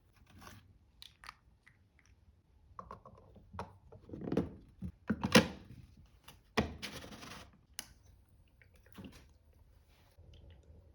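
Scattered clicks, taps and scrapes of small objects being handled, with a louder stretch of rustling or scraping noise around the middle.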